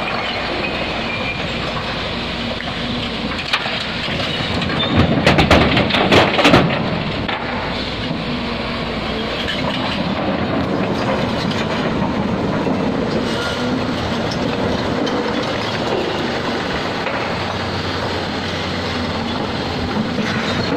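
Hyundai HX 360L mining excavator's diesel engine running steadily under load while its bucket scoops broken stone, with a burst of rocks clattering against the bucket about five seconds in.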